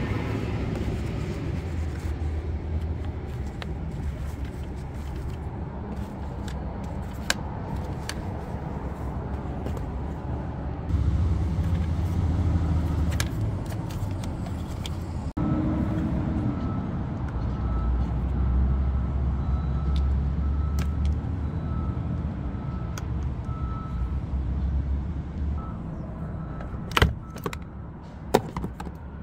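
Low rumble of a motor vehicle's engine running nearby, growing louder for a few seconds at a time, with a few sharp clicks near the end.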